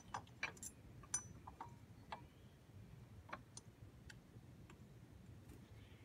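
Faint, scattered small metallic clicks and ticks as the water pump pulley is fitted onto the pump shaft hub and its bolts are started by hand. The clicks are most frequent in the first couple of seconds, then sparser.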